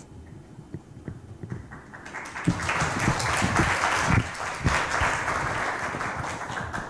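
An audience applauds, a few scattered claps at first and then full applause from about two seconds in that slowly thins out toward the end. A few dull thumps can be heard within it.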